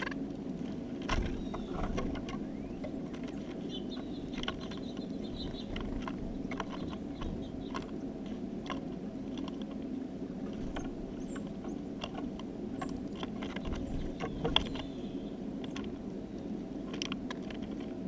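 Birds at a window feeder: scattered small clicks and taps of beaks and feet on the seed and feeder, with a few faint high chirps, over a steady low hum. A louder knock comes about a second in and another near three quarters of the way through.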